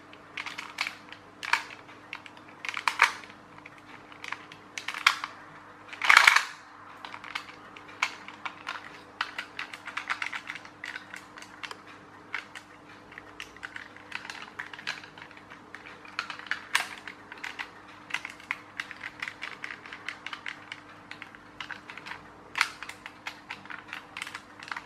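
Plastic gears in a clockwork toy tractor's gearbox clicking irregularly as the mechanism is turned by hand, with a few louder clicks in the first six seconds and then faster runs of clicks. The clicking comes from something loose in the gear train, which the owner suspects is loose or broken gear teeth.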